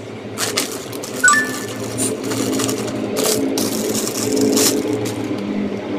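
Clear plastic wrapping crinkling and rustling in irregular bursts as it is pulled open by hand, over a steady low hum.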